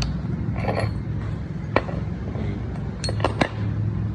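Small machined metal parts clinking against each other as they are handled: one sharp clink a little under two seconds in, then three quick ones about three seconds in, over a steady low hum.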